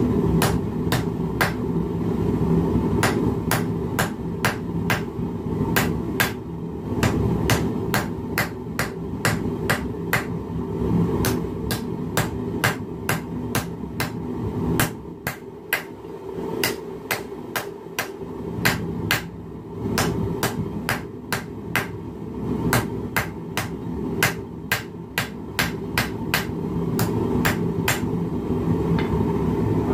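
Hand hammer striking a hot steel bar on the anvil face of a bench vise, a steady rhythm of about two sharp metallic blows a second. The blows are forging down a step in the bar to draw out the stem of a leaf keychain.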